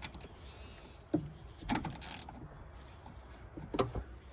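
Hand tools on engine hardware: a few scattered metallic clicks and clinks as bolts are tightened by hand, with a short scrape about two seconds in.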